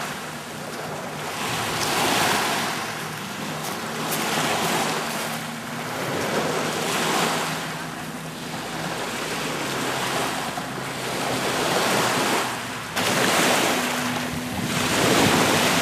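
Small lake waves washing up onto a pebble shore, the hiss swelling and fading every few seconds, with wind buffeting the microphone. A faint steady low hum runs underneath.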